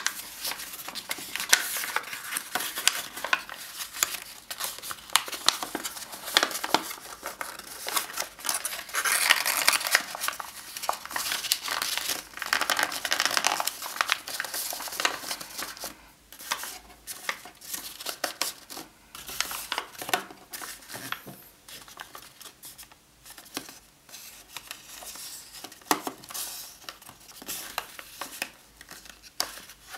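A sheet of paper rustling and crinkling as hands fold and crease it into an origami box, with many small crackles and ticks. The handling is busiest and loudest about nine to fourteen seconds in, then grows sparser and softer.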